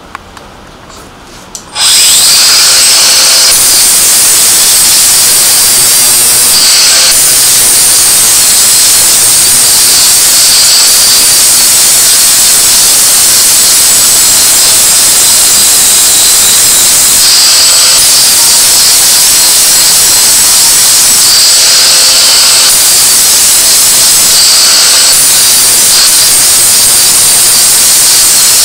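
INGCO angle grinder starting up about two seconds in and then running steadily and loudly, grinding the workpiece to even out a part that is too thick.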